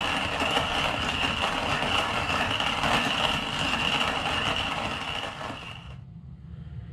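Hand-cranked manual coffee grinder grinding whole coffee beans: a steady grinding and rattling that stops abruptly about six seconds in.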